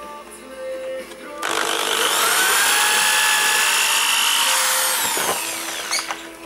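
Metabo electric drill spinning up about a second and a half in, drilling into the underside of a pine shelf for about three seconds, then winding down.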